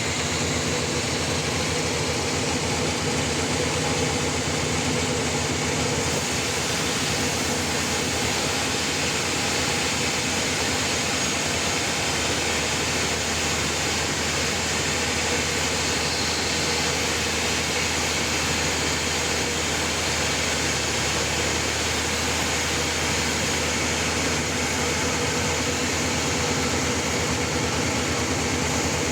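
Sawmill machinery running steadily, a constant mechanical drone with a steady hum. A deeper hum joins about twelve seconds in.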